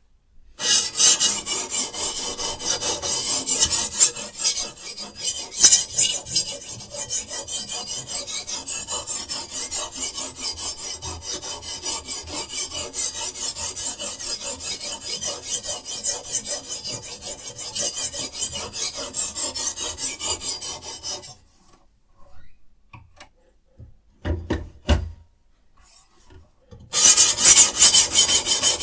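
A sharpening stone on a guided Sytools K09 knife sharpener scraping back and forth along a knife blade in rapid strokes. The strokes stop about two-thirds of the way through, a few light knocks follow, and the scraping starts again near the end.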